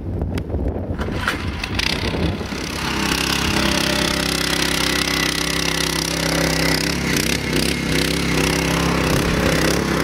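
Petrol engine of a Husqvarna walk-behind cultivator running as it tills the soil, uneven and clattering for the first few seconds, then settling into a steady engine drone.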